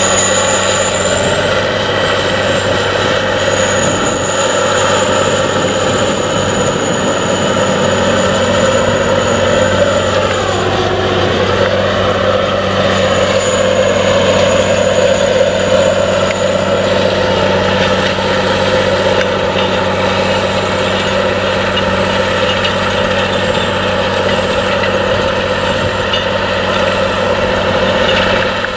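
Challenger MT865C rubber-tracked tractor's diesel engine working under load as it pulls a reversible plough, a steady drone with a thin high whine over it. The tone shifts briefly about ten seconds in as the tractor goes past.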